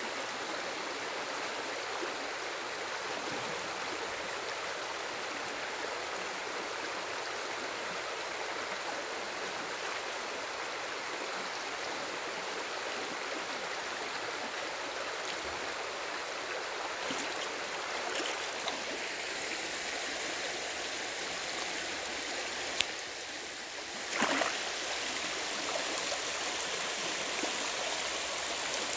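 Shallow stream running over a gravel bed: a steady rush of rippling water. About two-thirds of the way through there is a single sharp click, then a short louder burst a second later.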